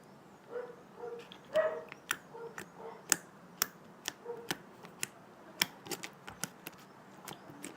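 Homemade glue slime being squeezed and worked by hand, giving a string of sharp, irregular clicks and pops, about a dozen spread over the stretch, with a few softer squelches in the first half.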